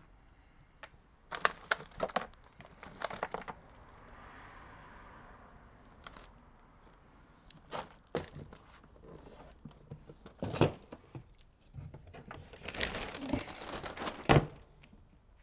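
Plastic wrapping crinkling and tearing as it is handled, with scattered sharp clicks and knocks. There is a quick cluster of clicks a second or two in, a soft rustle around the middle, and louder crinkling bursts in the last third.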